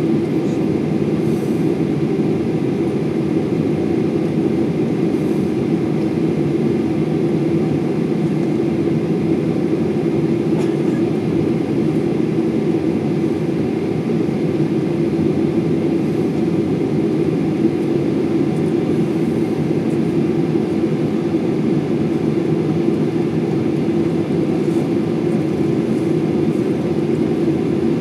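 Jet airliner's engines running at idle, heard from inside the passenger cabin as a steady, unchanging low hum.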